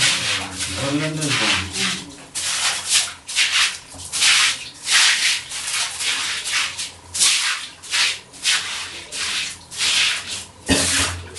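Rhythmic rasping, hissing strokes, roughly one to two a second, like something being rubbed or scrubbed. A low voice is heard in the first two seconds and again near the end.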